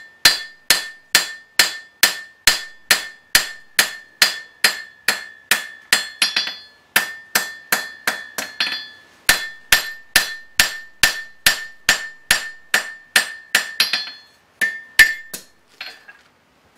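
Blacksmith's hand hammer striking a red-hot steel horseshoe held in tongs on an anvil, about two blows a second, each with a ringing note from the anvil. The steel is being drawn out into a tapering blade. The blows come in runs with short pauses and end in a few lighter taps near the end.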